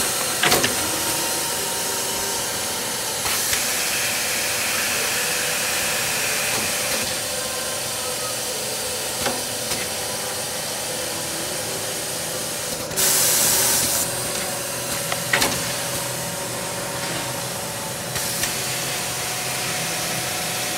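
Pronto End papering machine running: a steady mechanical hum with a faint steady tone, broken by a few sharp clicks and knocks from its moving parts. About 13 seconds in, a loud hiss of compressed air lasts about a second.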